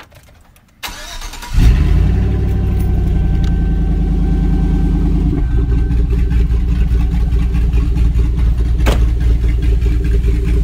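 Chevy Silverado's 4.8-litre V8 cranked by the starter for under a second, catching about a second and a half in with a short flare, then idling steadily; the idle settles a little about five seconds in. The engine runs a street tune with a ghost cam, which gives the idle its choppy lope.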